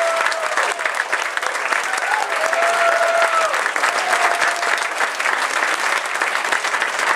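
Audience applauding steadily, with a few drawn-out calls from voices in the crowd, about a third of a second in and again around three seconds in.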